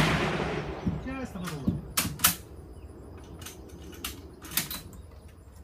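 The echo of an M1 Garand rifle shot dying away over about a second under the covered firing line. It is followed by several short, sharp cracks, a pair about two seconds in and more near the end.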